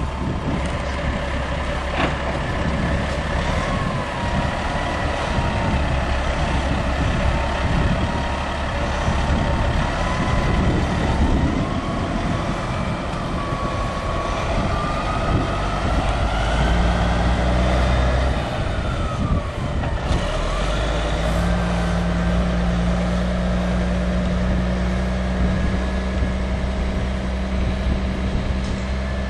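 Caterpillar 3406 inline-six diesel of a 1989 Ford LTS9000 vacuum truck pulling away under load, with a whine that slowly rises in pitch and then drops about two-thirds of the way through, after which the engine settles into a steadier low hum.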